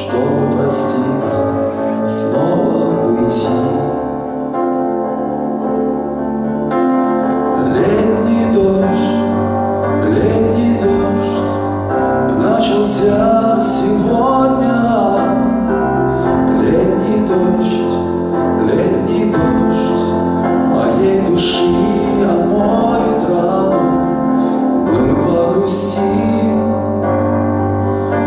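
A man singing a slow ballad live into a microphone, accompanying himself on a Yamaha electronic keyboard played with a piano-like sound, with no band.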